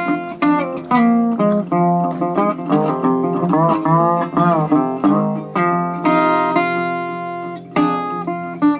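Background blues music on guitar: picked notes with bent, sliding pitches in the middle, and no singing.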